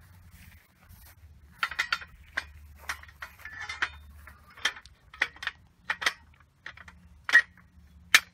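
Steel on steel: an AR-500 steel bullet shield clinking and tapping against a steel target stand as its tabs are seated into the stand's slots. A string of short, sharp metal clinks, the loudest near the end.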